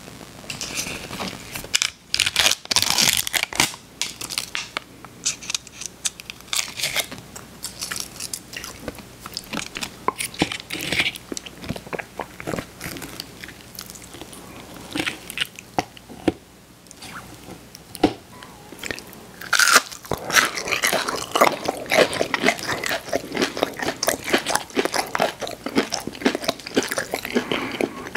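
Close-miked crunching and chewing of crispy fried chicken nuggets, with crisp bites and crackles, loudest and densest in the last third. Near the start there is a papery crackle from a dipping-sauce cup's lid being peeled open.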